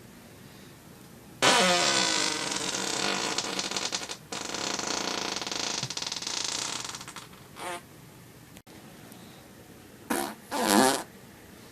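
Loud human farts. One long buzzing fart lasts about six seconds: its pitch drops at the start and it breaks off briefly partway through. A short one follows, and near the end come two short farts in quick succession.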